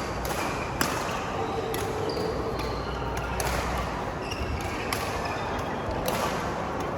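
Badminton rally: sharp racket strikes on the shuttlecock about once a second, with short high squeaks of court shoes on the floor between them.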